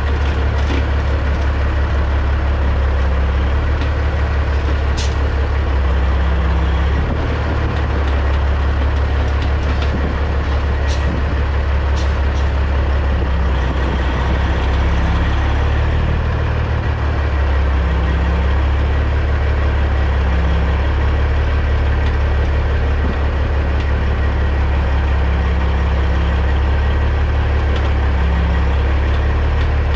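Caterpillar C15 diesel engine of a 2006 Peterbilt 379 semi running steadily at low revs, a deep, even drone, with a few short ticks about 5 and 11 to 12 seconds in.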